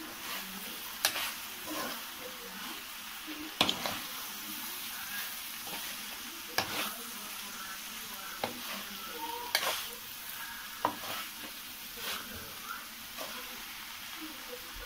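Metal spoon stirring a small-bitter-gourd curry in a pan over the heat, mixing it once after it has simmered covered: a steady sizzle of frying oil, with sharp clinks and scrapes of the spoon against the pan every second or two.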